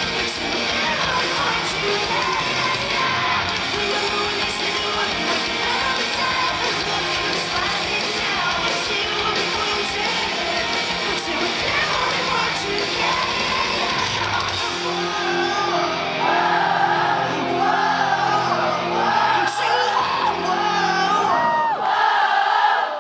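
Live post-hardcore rock band playing loud in a concert hall, with the singer's vocals over guitars and drums. About fifteen seconds in, the drums and bass drop out, leaving held notes while the crowd sings along.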